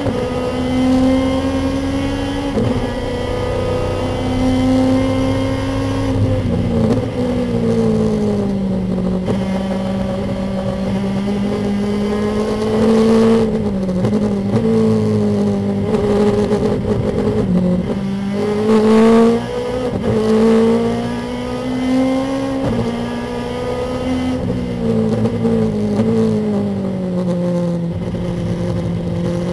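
Lexus IS-R race car's engine heard from inside the cockpit at racing speed, its pitch climbing under throttle and stepping down or falling away repeatedly through gear changes and braking for corners.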